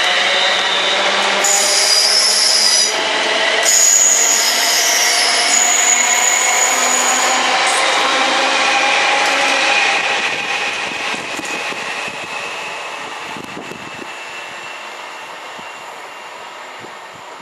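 A London Midland Class 350 Desiro electric multiple unit passing close, its traction equipment whining in several steady tones. High-pitched squeals come and go in the first half, and the sound fades after about ten seconds as the train draws away.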